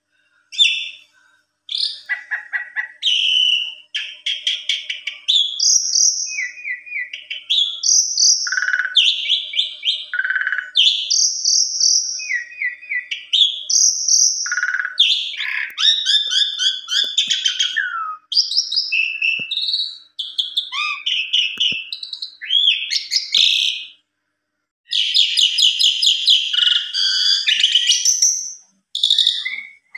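Asian pied starling (jalak suren) singing a long, varied song of whistled notes and harsh chattering phrases, the loud 'emosi' full-song display with mimicked fill-in phrases (isian). It breaks off for about a second about three-quarters of the way through.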